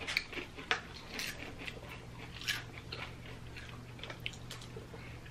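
Tortilla chips being bitten and chewed close to the microphone: scattered crisp crunches several times over, with a faint steady low hum underneath.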